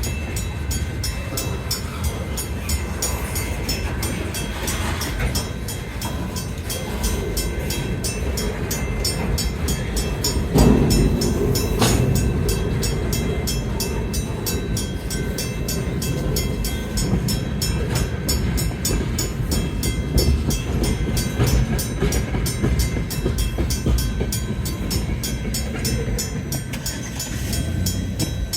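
A train rolling past on the rails: a steady low rumble with a rapid, even clicking throughout, and a louder knock about ten seconds in.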